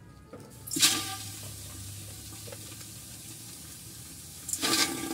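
Meat pieces going into hot oil in a pot over a wood fire, sizzling loudly at once about a second in and again near the end, with a steady sizzle between.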